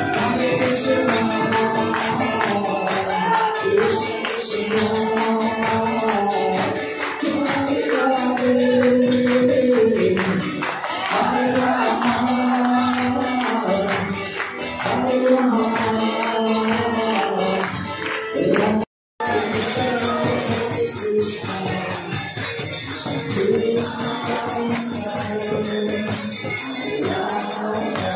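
Krishna kirtan: a group chanting in unison over jingling percussion that keeps a steady beat. The sound drops out for a moment about two-thirds of the way through.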